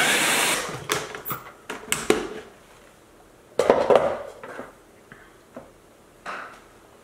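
Plastic food processor bowl being handled: a scraping rush of about a second as it is twisted off its motor base, then scattered clicks and a clatter as the bowl is set down on the stone counter and its lid is unlatched.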